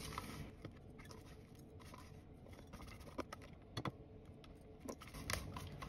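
Scattered light clicks and taps as crumb mixture is tipped from a plastic food-processor bowl into a metal muffin tin, the bowl knocking against the tin now and then.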